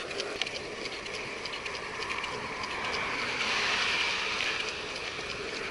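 Skateboard wheels rolling on an asphalt bike path: a steady rumble with frequent light clicks. A car passes, swelling and fading from about three seconds in.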